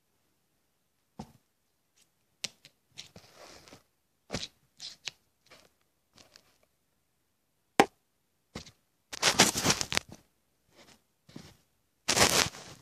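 A small round metal tin being handled and worked at by hand: a string of sharp knocks and clicks of metal, the loudest about eight seconds in, with bursts of scraping noise about three, nine and twelve seconds in.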